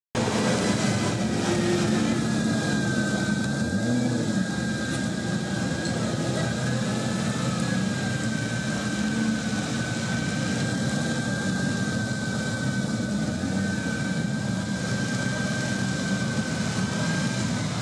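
A Ferrari 250 GTO's V12 engine idling steadily, with a thin, steady high whine over the low engine note.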